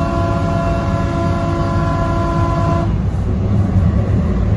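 DART light rail train's horn sounding one long steady chord that cuts off about three seconds in, over the low rumble of the train running on the rails.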